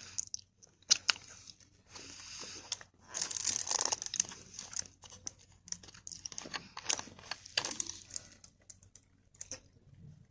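Plastic food wrapper being crinkled and torn open, with scattered sharp clicks.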